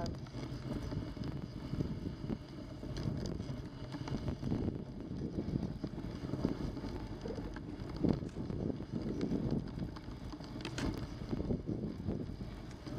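Dog sled travelling through deep fresh snow: a steady, rough rushing and scraping of the runners and the team working through the snow, with a few sharp knocks.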